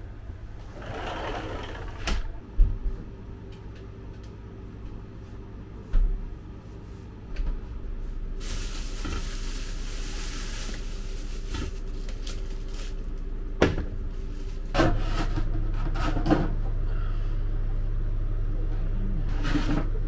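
Plastic grocery bags rustling as they are handled and unpacked, with several sharp knocks and thumps. About three-quarters of the way through, a steady low hum grows louder and carries on.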